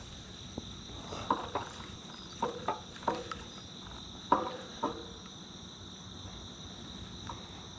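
Night insects chirring, a steady high-pitched drone of several tones. Several short clicks, mostly in pairs, come between about one and five seconds in.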